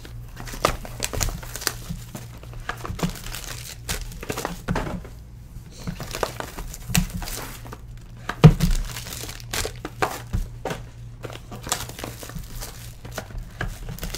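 Foil card-pack wrappers crinkling and small cardboard card boxes being opened and handled, a run of irregular rustles and sharp clicks, with one louder knock about eight and a half seconds in.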